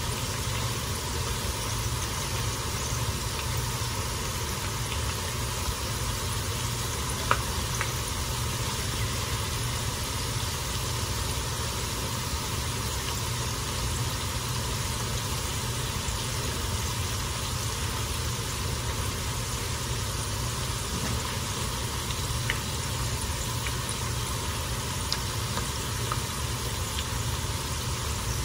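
Tortilla chips frying in hot oil in a skillet: a steady sizzle over a low hum, with a few short clicks as the pieces are turned with tongs, the sharpest about seven seconds in.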